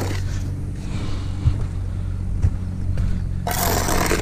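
Steel trowel scraping mortar against concrete foundation blocks, loudest near the end, over a steady low machine hum.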